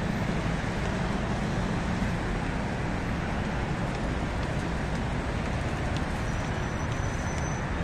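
Steady city road traffic: a continuous low rumble of passing motor vehicles, with no single event standing out.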